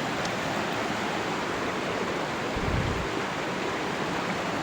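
Steady rush of flowing stream water, with a single dull low thump a little past halfway.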